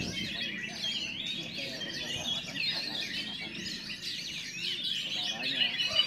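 Many caged oriental magpie-robins (kacer) singing at once, a dense overlapping chorus of whistles and chattering, with a low murmur of voices beneath. Near the end a steady high whistle sets in over the chorus.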